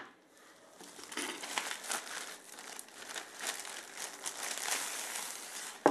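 Thin plastic wrapping crinkling and rustling as it is handled and pulled off a keyboard, a run of small irregular crackles that begins just under a second in.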